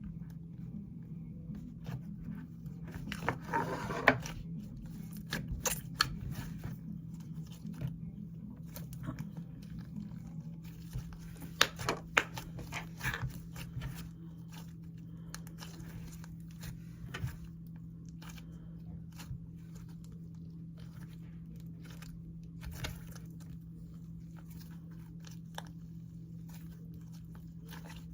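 Slime being hand-mixed with its add-ins, giving irregular wet clicks, pops and crackles. They come thickly for the first half and thin out to occasional clicks later, over a steady low hum.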